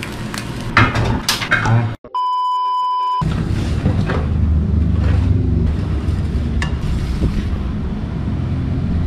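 A few knocks of a pan against a plate as an omelette is slid out, then a steady electronic beep lasting about a second after a sudden cut. A steady low hum runs through the rest.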